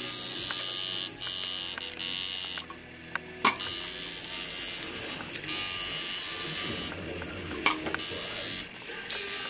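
Coil tattoo machine buzzing in several runs, switched on and off repeatedly with short gaps between, and a couple of sharp clicks at the breaks.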